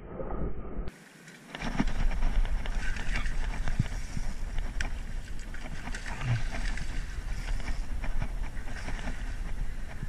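Wind buffeting the microphone in a steady low rumble, over water splashing at rocks with many small splashes and clicks. It starts abruptly about a second and a half in, after a short quieter stretch.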